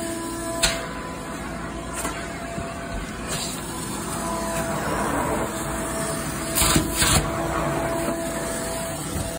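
Carpet extraction cleaner running: the steady rush of its vacuum suction and spray through a floor wand drawn over carpet along a baseboard. A few sharp knocks break in, the loudest two about three quarters of the way through.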